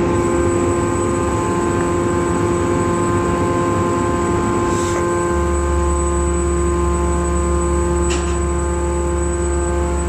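Hydraulic scrap metal baler's power unit running steadily with a whine of several fixed tones; a deeper hum joins about halfway through.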